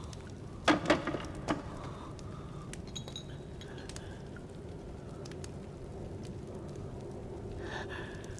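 A quick cluster of sharp clinks and knocks about a second in, like small hard objects being moved while searching, over a steady low rumble; a few fainter clicks follow.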